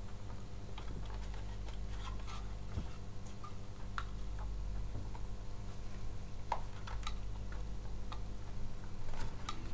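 Irregular small plastic clicks and ticks as the stiff, tight-fitting housing of a new SunSun HJ-1543 pond pump is worked by hand to pry the casing apart.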